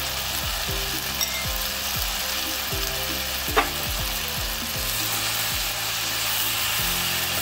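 Tomato and onion mixture frying in oil in a non-stick kadai, a steady sizzle under a heap of freshly added mint leaves, with a single sharp tap about halfway through and a spatula stirring near the end. Soft background music runs underneath.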